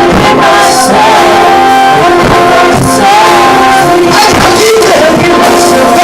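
Loud live worship music: a singing voice over band instruments.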